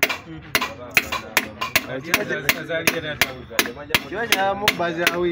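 Steel tool tapping repeatedly on a piston crown seated in a diesel engine's cylinder bore: a quick, slightly irregular series of sharp metal knocks, about three or four a second.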